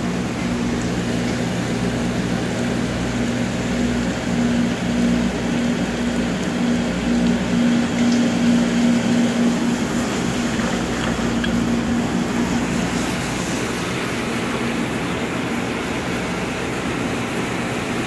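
Commercial dishwasher running: a steady electric motor hum over an even rushing noise, the hum easing near the end.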